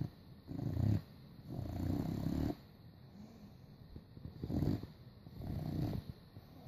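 Boxer puppy snoring in its sleep: four rough, low snores in two pairs, each a short snore followed by a longer one, the pairs about four seconds apart.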